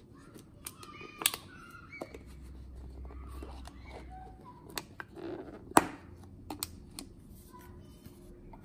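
A clear plastic dome lid being pressed onto a plastic boba cup: a string of sharp plastic clicks and crinkles, the loudest about a second in and again near six seconds in.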